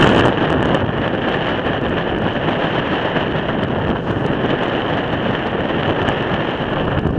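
Strong wind buffeting the microphone on a boat at sea, over the steady running of the boat and choppy waves, a little louder in the first half second.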